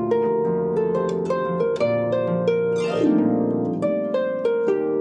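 Instrumental music: a gentle melody of plucked notes, several a second, over held lower notes.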